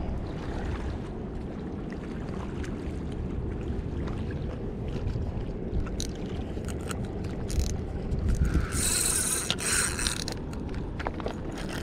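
A spinning reel and rod being handled, with scattered small clicks and a louder high rasp about nine seconds in lasting about a second and a half, as a bite is taken up on the reel. A steady low rumble of wind on the microphone runs underneath.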